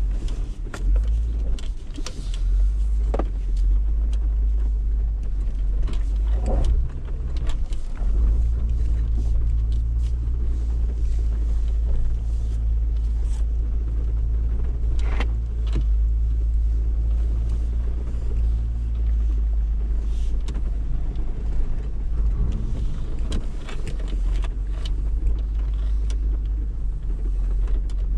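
Jeep Wrangler's 3.6-litre V6 running at low speed while the Jeep crawls over a rocky trail, a steady low rumble that works harder for a stretch in the middle. Scattered knocks and a few brief squeaks come from rocks under the tyres and the body and suspension.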